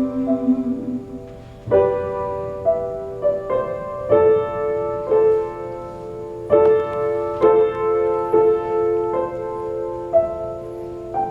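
Piano playing slow chords, struck roughly once a second and left to ring.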